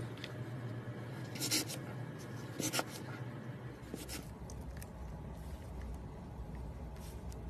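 Hands working a lump of slime, giving a few short, sticky squishing crackles. The two loudest come about one and a half and nearly three seconds in, with fainter clicks after.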